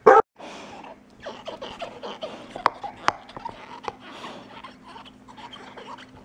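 A dog gives one short, loud bark at the very start, then chews and mouths a tennis ball: a run of irregular wet clicks and squelches.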